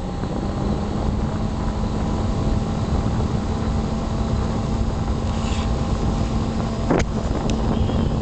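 A 120 mm Zaward G3 Golf case fan running at about 2000 RPM, its airflow rushing steadily over the microphone with a low hum, coming up to speed in the first second. Faint chirps from the test power supply come through now and then, and there is a brief sharp sweep about seven seconds in.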